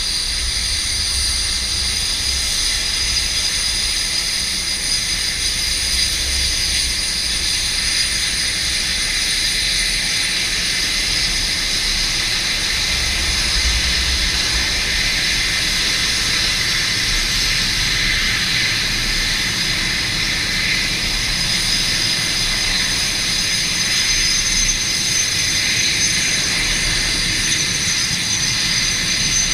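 Canadair CT-114 Tutor jets taxiing, their single turbojet engines making a steady, high-pitched whine of several overlapping tones, with a low uneven rumble underneath.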